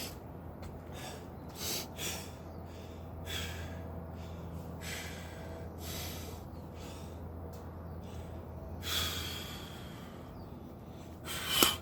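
A man breathing hard from exertion during burpees: short, forceful breaths at uneven intervals, with the loudest, sharpest breath near the end. A steady low hum runs underneath.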